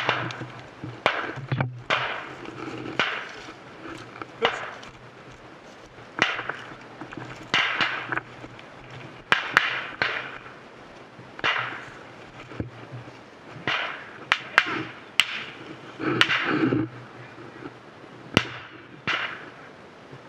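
Footsteps and gear brushing through dry brush and undergrowth, coming in irregular rustling bursts, with a few sharp cracks among them.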